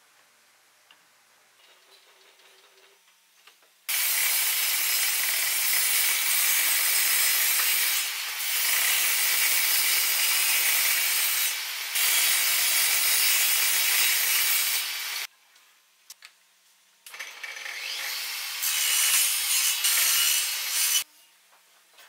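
Table saw ripping a thin strip of wood along the fence: a loud, even cutting noise that starts suddenly about four seconds in, dips briefly twice between passes, stops for a moment, then comes back for a shorter final cut. The first few seconds hold only faint taps of wood being handled.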